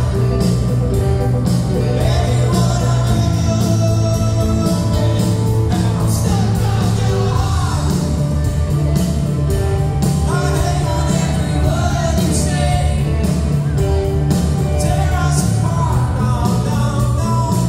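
Live band playing a rock song with singing: grand piano, electric guitars and drums under the vocals, heard from the audience in a theatre.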